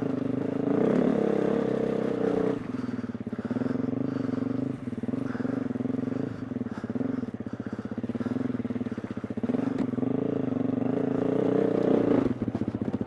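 2020 KTM 350 EXC-F dirt bike's single-cylinder four-stroke engine riding under changing throttle, opening up harder about a second in and again near the end, then backing off sharply.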